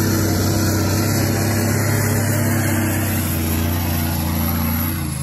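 Toyota Land Cruiser engine running steadily at low revs under load as the 4x4 crawls up a loose sandy, rocky slope, its note dropping slightly near the end.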